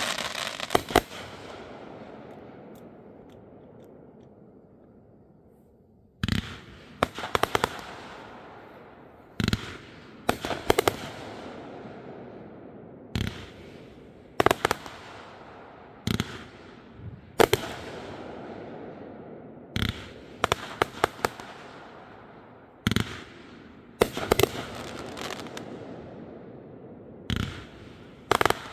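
Fireworks going off. A crackle fades out over the first few seconds, and after a short lull sharp bangs come from about six seconds in, every second or two and often in quick clusters, each followed by a fading crackle.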